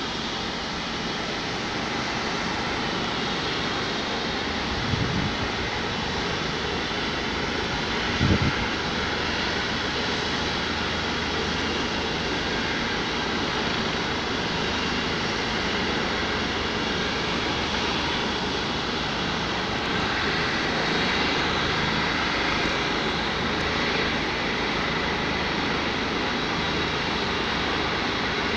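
Rescue helicopter running on a rooftop helipad before lift-off: a steady rush of turbine and rotor noise with a faint high whine. Two brief low thumps come about 5 and 8 seconds in.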